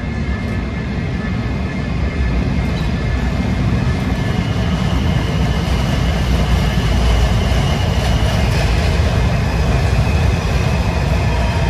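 Washington Metro train pulling into an underground station: the rumble of wheels on rail grows louder as it approaches and runs along the platform. A whine joins in partway through and falls in pitch near the end as the train slows.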